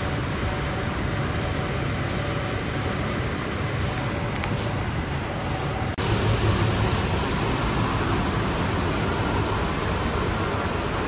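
Staten Island Railway train running: a steady rumble and hiss with a thin high-pitched whine. About six seconds in there is a brief dropout; the whine is gone after it and the rumble is a little louder.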